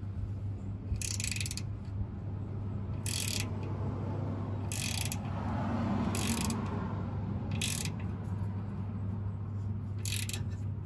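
Ratchet wrench clicking in six short runs as it swings back and forth, tightening the retaining bolt on the speedometer gear bullet of a TH350 transmission, which pushes the bullet fully home. A steady low hum runs underneath.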